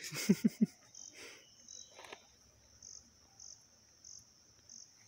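Insects chirping in a steady high-pitched pulse, about one and a half times a second. About a third of a second in come three quick, short vocal sounds, the loudest thing here, with a little rustling around them.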